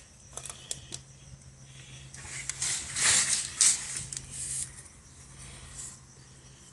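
A few light clicks, then a couple of seconds of hissing, scraping handling noise, loudest about three seconds in, from work with an oil filter wrench on a motorcycle's spin-on oil filter as it is being loosened. A faint steady low hum runs underneath.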